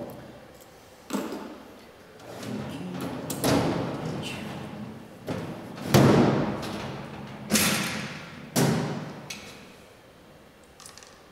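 Supplies being unpacked from a hard plastic case: a series of knocks and thuds as items are handled and set down, the loudest about six seconds in.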